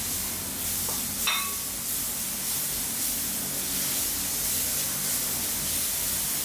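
Crushed onion mix sizzling in hot oil and ghee in a pan as it sautés, a steady hiss. One light metallic tap sounds about a second in.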